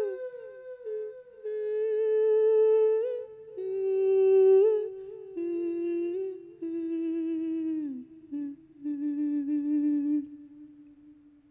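A Thai monk's wordless lae chanting: one long vowel held with vibrato, stepping and sliding down through a series of notes. It grows fainter toward the end.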